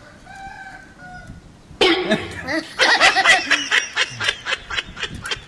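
A man laughing, a run of quick laughs starting suddenly about two seconds in and lasting a couple of seconds.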